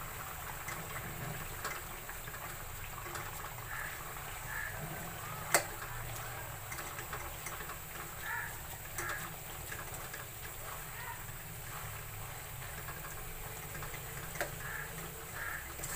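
A spoon stirring boiled cluster beans into thick tomato-masala gravy in a steel pan: soft scraping with scattered light clicks, and one sharp clink of the spoon on the pan about five and a half seconds in, over a steady low hum.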